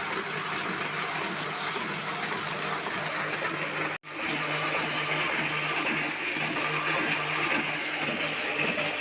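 Paper printing press running steadily with a continuous mechanical hum and clatter. The sound cuts out for an instant about four seconds in, then carries on with a faint even rhythm.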